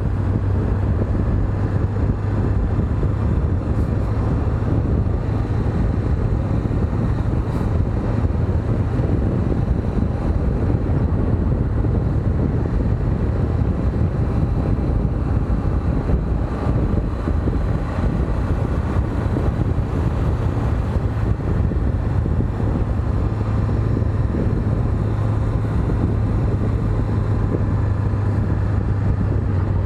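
Honda CB500X parallel-twin engine running steadily while the motorcycle is ridden at a constant pace, with wind rushing over the microphone.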